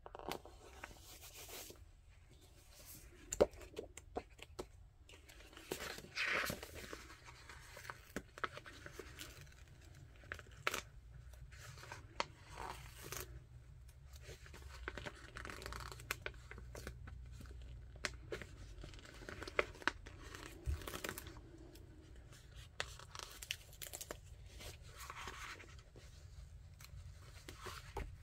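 Paper stickers being peeled off their backing sheet and handled, with the sticker-book pages rustling and crinkling under the hands. Irregular scratchy peels and small sharp ticks, with a longer peel about six seconds in and again near the end.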